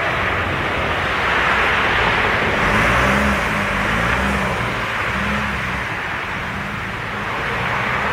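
Steady street noise from an electric tram drawing slowly nearer on its track and from road traffic: a broad hiss with a low hum that wavers up and down in pitch for a few seconds around the middle.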